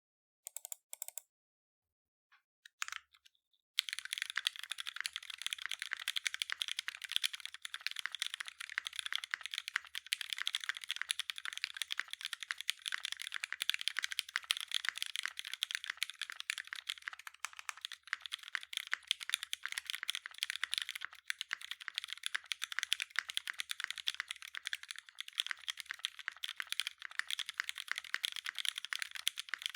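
Fast, continuous typing on an AEBoards Constellation 65 custom mechanical keyboard: lubed and filmed Retool Black linear switches in a 1.5 mm brass plate, gasket strip mount, no dampening, with GMK keycaps. A couple of short bursts come in the first three seconds, then steady rapid keystrokes from about four seconds in.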